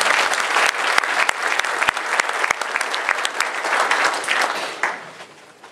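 Audience applauding, a burst of clapping that dies away about five seconds in.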